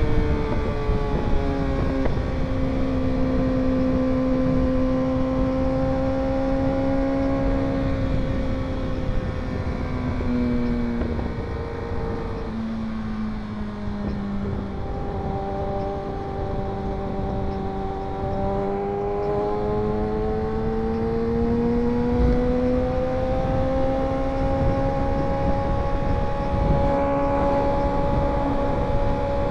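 Motorcycle engine running on the road with low wind rumble. The engine note holds steady, drops in a few steps around the middle as the bike slows, then climbs slowly again toward the end.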